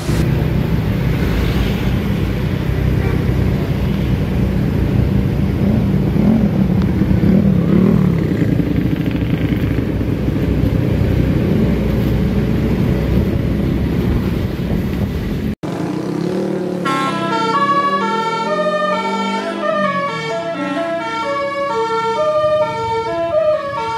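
Heavy engine and road noise for about the first fifteen seconds, then, after an abrupt cut, a bus's 'telolet' multi-tone horn playing a tune of quick stepped notes.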